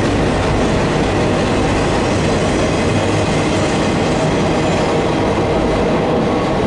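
Double-stack intermodal freight train passing, its steel wheels rumbling on the rails as the last container cars go by. The rumble carries on after the tail clears, its higher sounds thinning out near the end.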